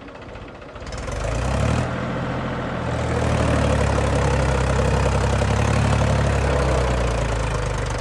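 Mahindra tractor's diesel engine revving up about a second in and held at high revs under load as it strains to climb out of deep sand where it is stuck, easing slightly near the end.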